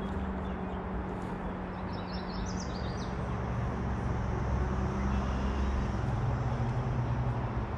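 Steady low engine hum whose pitch drops lower about halfway through and grows a little louder, with a few short high bird chirps about two to three seconds in.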